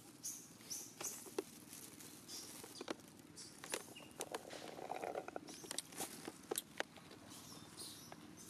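Faint rustling and crackling of dry leaf litter and twigs as macaques handle and move over it, with many sharp clicks scattered irregularly and short high-pitched rustles.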